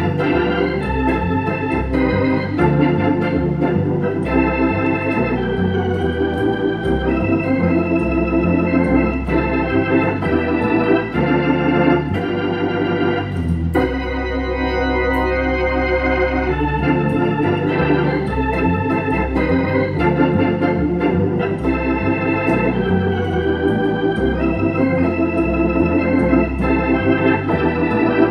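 Hammond organ played through a Leslie rotating speaker cabinet: full chords over a bass line that steps from note to note, played without a break. The Leslie has just been reconnected to the organ and is being tested.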